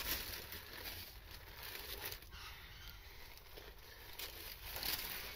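Faint rustling handling noise with a few light clicks and taps.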